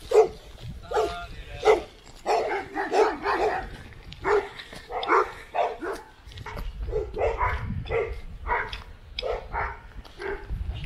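Dog barking over and over in short, separate barks, one or two a second, with a low wind rumble on the microphone in the second half.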